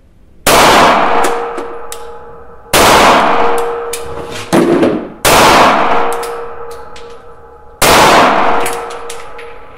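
Shadow Systems MR920 Elite 9x19 mm striker-fired pistol fired four times, roughly two and a half seconds apart, each shot ringing and echoing in a small indoor range. A shorter bang comes between the second and third shots.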